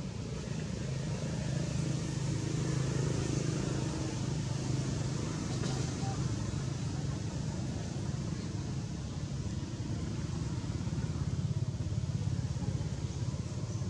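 A steady low rumble of background noise throughout, with a faint tick about six seconds in.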